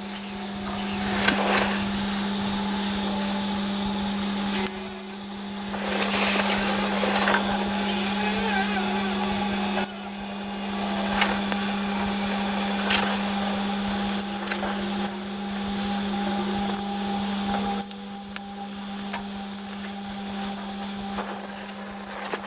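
Brazing on a thin sheet-steel EGR cooler: a steady hiss that drops and resumes a few times as the work goes on, over a steady hum, with a few sharp clicks.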